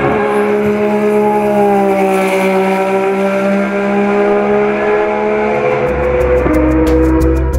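Ferrari 126 C2 Formula One car's turbocharged V6 running on track. The engine note sags slightly in pitch and comes back up, then drops in pitch near the end.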